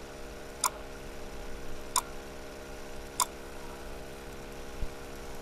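Three sharp computer mouse clicks about a second and a half apart, over a faint steady electrical hum.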